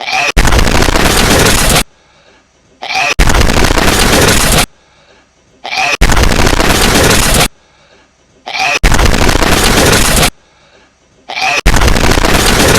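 A hedgehog's sneeze on a repeating loop, blown up into a sudden, extremely loud, distorted blast about a second and a half long. Each blast follows a short faint lead-in, and it comes five times, about every three seconds.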